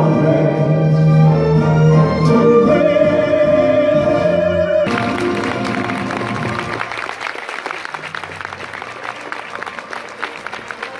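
Recorded music with operatic singing that ends about five seconds in. Audience applause breaks out as it ends and gradually dies down.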